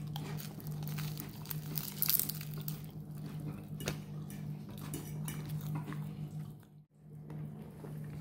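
A metal fork scraping and clicking against a plate while eating, busiest about two seconds in, over a steady low hum.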